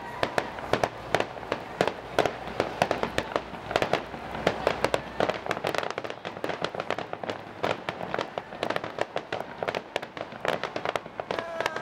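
Fireworks display: aerial shells bursting in quick succession, many sharp bangs and crackles overlapping with no pause, over a low rumble that drops away about halfway through.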